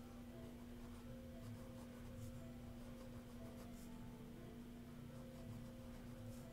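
Ink pen scratching on sketchbook paper in short, faint hatching strokes, over a steady low hum.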